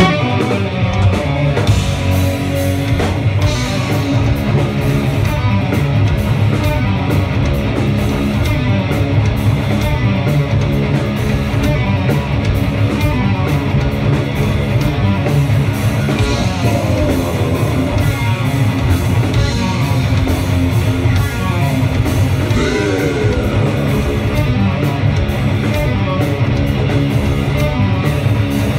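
A live rock band bursts into a loud, aggressive heavy song with distorted electric guitars and a drum kit, the music kicking in all at once and playing without a break.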